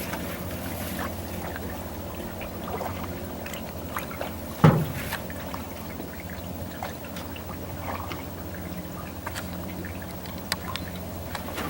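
Water trickling and dripping off a canoe paddle, with small splashes, over a faint steady low hum. One sharp knock is heard about five seconds in.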